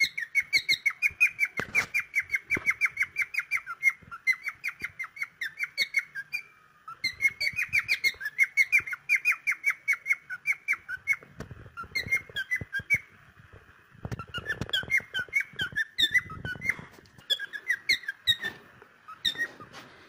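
Cockatiel whistling a fast string of short chirping notes, several a second, with a brief pause about six seconds in, then carrying on in looser, more scattered chirps.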